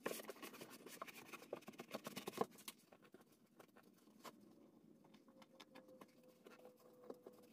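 Faint scuffing and scratching of hands rubbing and pressing marine carpet onto the glued edge of an aluminum hatch lid, a quick run of light scuffs in the first two seconds or so, then near silence.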